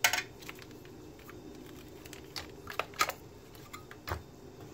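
Hand tools and a small plastic parts container being handled on a workbench: a handful of sharp clicks and clacks. The loudest comes right at the start, and a cluster follows around three seconds in.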